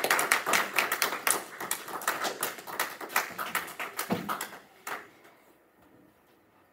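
A small audience applauding, many separate hand claps that thin out and die away about five seconds in.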